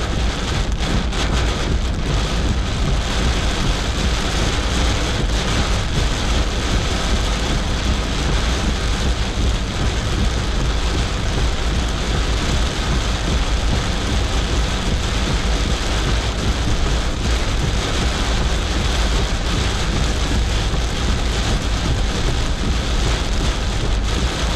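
Torrential rain drumming on the roof and windscreen of an old kei car, heard from inside the cabin, over a steady low rumble from the car. It is loud and even throughout.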